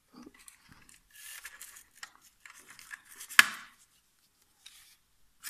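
Clear plastic blister packaging handled as a headlamp and its strap are pulled out of the tray: scattered rustling and rubbing of plastic, with one sharp plastic click about three and a half seconds in.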